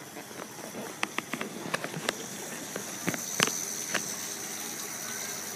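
Footsteps and handling clicks of a phone being carried while walking. A steady thin high-pitched whine comes in about halfway and grows stronger.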